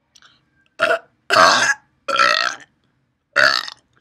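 A woman belching four times in a row, each burp short and loud, with brief pauses between.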